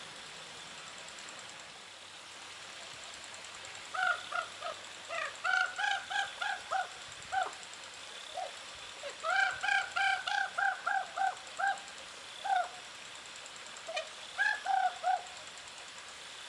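Common ravens calling: quick runs of short, clipped calls, about four a second, coming in three bouts.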